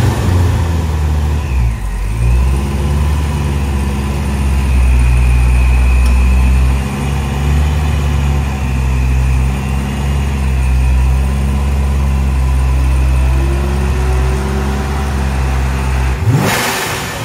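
A 2014 Corvette Stingray's 6.2-litre LT1 V8 idling steadily right after its first start-up with a newly fitted A&A centrifugal supercharger, a thin steady high whine riding above the engine. Near the end comes a short loud hiss.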